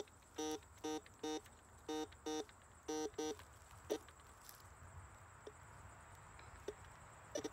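Metal detector giving short warbling beeps in quick clusters of three, two and two, then stopping about three and a half seconds in: the target signal from metal buried under the roots.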